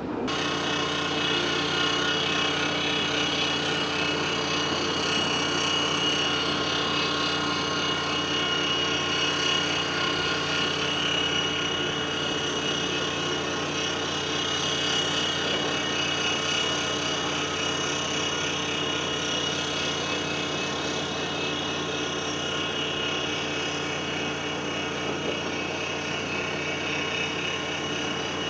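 Heavy diesel earthmoving machinery running steadily, the engine note held constant with a steady whine above it.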